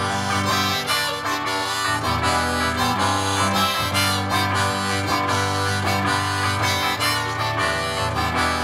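Harmonica playing a melody over a steadily strummed hollow-body electric guitar, an instrumental passage of a song played live.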